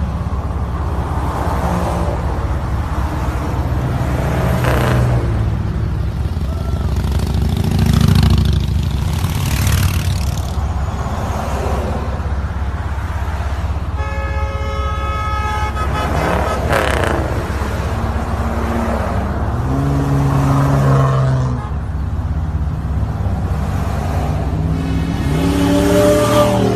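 Lifted Jeep Wranglers driving past in a line, a steady engine rumble with engine notes rising and falling several times as they go by. A horn sounds once for about a second and a half near the middle.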